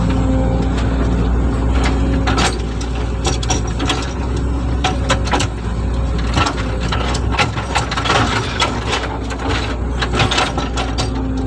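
Hitachi excavator working, its diesel engine running steadily. From about two seconds in, a rapid irregular run of metallic clicks and clanks comes from the machine.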